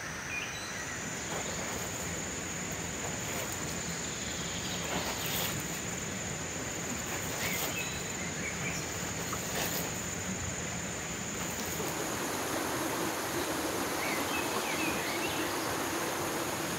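Water sprinkling from a plastic watering can's rose onto leafy vegetables, a steady hiss of spray and patter on the leaves. A continuous high-pitched insect drone runs underneath.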